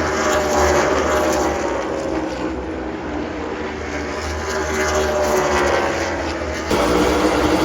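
NASCAR stock cars' V8 engines passing by one after another at speed, the engine pitch sweeping up and then falling as each car goes past. The sound changes abruptly near the end.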